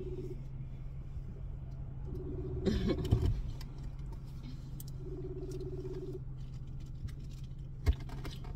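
Outgoing phone call ringing out on speakerphone: a low ringback tone about a second long, heard three times roughly three seconds apart. Under it runs the steady low hum of the car, with a brief scuffle of noise about three seconds in.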